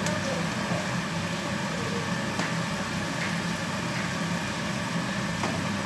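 Steady low machine hum, with two light knocks of a utensil against a pot as spaghetti is stirred, about two and a half and five and a half seconds in.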